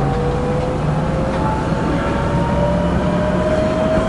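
Tatra KT4D tram running on its rails: a steady rumble with a motor whine that climbs slowly in pitch as the tram picks up speed.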